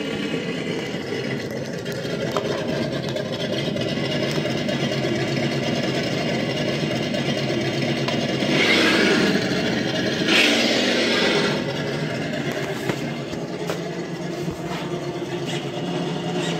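An engine idling steadily, with two brief revs about eight and a half and ten and a half seconds in.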